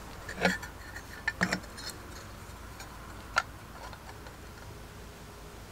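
A few sharp clicks and knocks as the parts of a GEC telephone extension bell set are handled: one about half a second in, a quick cluster around a second and a half, and a single click a little past three seconds.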